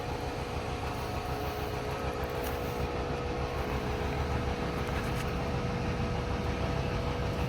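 A steady mechanical hum with a low rumble and a constant tone, the even running of a motor or fan.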